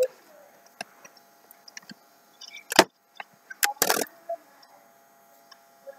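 A few sharp knocks and clicks: one loud knock about three seconds in, then a quick cluster of knocks about a second later, with faint ticks between.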